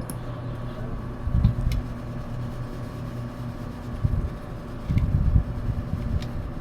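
Faint clicks and a few dull knocks as a small screw is driven into an airsoft V3 gearbox shell with a screwdriver, over a steady background hum.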